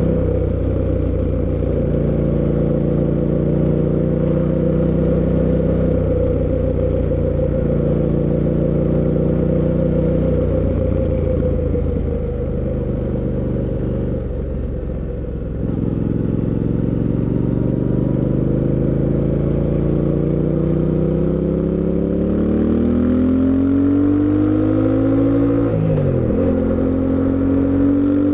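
Fantic Caballero 700 Scrambler's 689 cc parallel-twin engine on the move: it runs at steady speed, eases off briefly about halfway through, then pulls hard with rising revs, drops pitch at an upshift a couple of seconds before the end, and climbs again.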